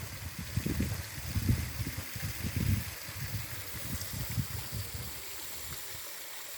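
Waterfall water rushing as a steady hiss, with wind buffeting the microphone in gusts for the first five seconds or so.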